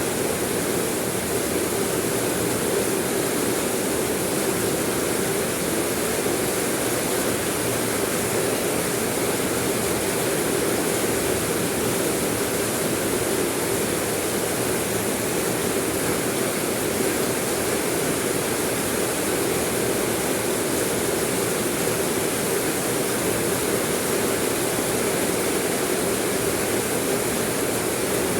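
Steady rain falling, an even unbroken hiss that does not change.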